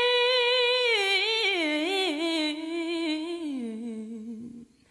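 A solo voice singing without words: a long held note that breaks into a wavering run falling in pitch, ending about four and a half seconds in.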